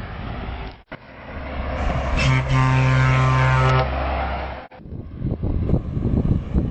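A passing truck sounds its horn in one steady, low blast of about a second and a half, over the engine noise. Before it and after it there is rumbling engine and road noise from other trucks.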